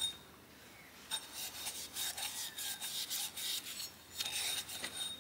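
Maroon Scotch-Brite abrasive pad scrubbing the alloy body of a Sealco air start valve, a run of short rasping strokes starting about a second in, scouring off white scale.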